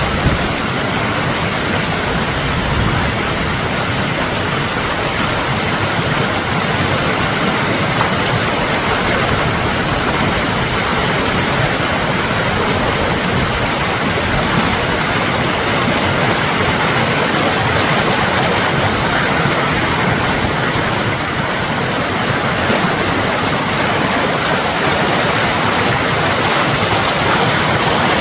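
Mountain creek rapids rushing loudly and steadily, swollen with snowmelt.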